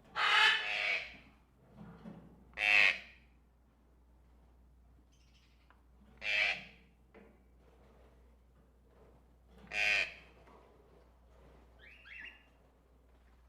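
Caged tropical birds squawking: four loud, harsh squawks a few seconds apart, the first the longest, then a fainter call near the end.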